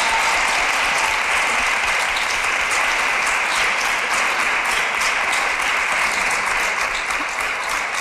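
Studio audience applauding steadily, in answer to a pledge just made to pay for a second year of school.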